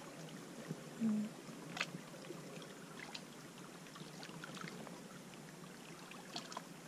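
Green plastic gold pan being dipped and swirled in a tub of water, with light sloshing and small splashes, as sluice cleanup concentrates are panned down. A short low hum about a second in is the loudest sound.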